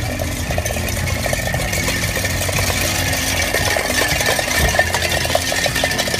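Tin cans tied on a string behind a wedding car clattering and scraping over paving stones as the car drives off: a dense, continuous rattle.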